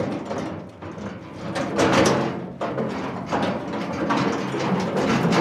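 Metal mine ore cart being pushed along, rattling and clanking, with a couple of sharper metallic knocks about two seconds in.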